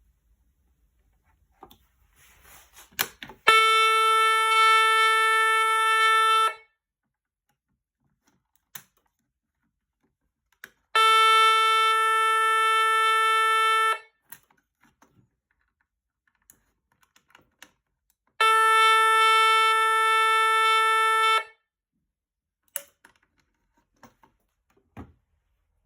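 Type 4 fire alarm panel's built-in sounder (Nugelec STI NUG31215) giving its continuous-tone alarm in test mode: three steady buzzing tones of about three seconds each, spaced roughly seven and a half seconds apart. Light clicks and knocks come before, between and after the tones.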